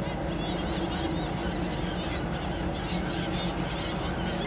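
A flock of seabirds calling over feeding humpback whales, many short overlapping cries, over the steady low hum of a boat's engine.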